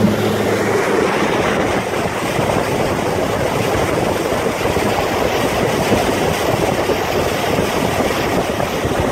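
Loud, steady rush of wind and water from an outboard boat running at speed over light chop, rough and uneven in texture. An engine hum fades under it about a second in.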